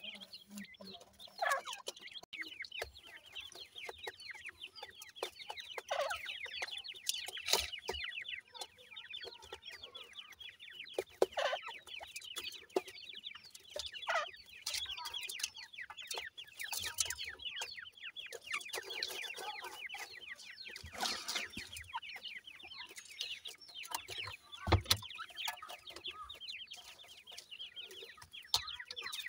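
Grey francolin chicks chirping continuously: many rapid, high, short falling peeps overlapping, with scattered louder, sharper calls. A single dull knock sounds late on.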